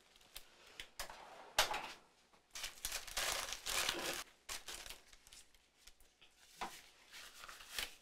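Paper surgical drapes crinkling and rustling as gloved hands handle them, in irregular bursts, the longest in the middle.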